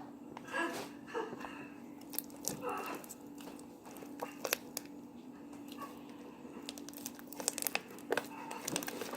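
Scattered small clicks and crinkly crackles from hands handling craft materials, over a faint steady hum.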